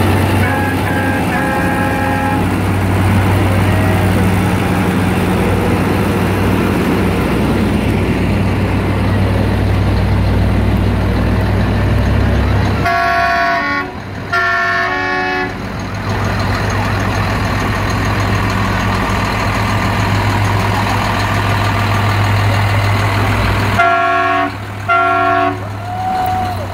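Big diesel engines of Big Bud tractors running with a steady low rumble as they drive past. A vehicle horn sounds in two short blasts about halfway through, and twice more near the end.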